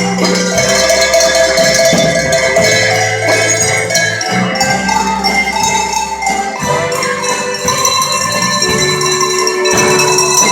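Music with bright bell-like percussion over a bass line that changes note every second or two.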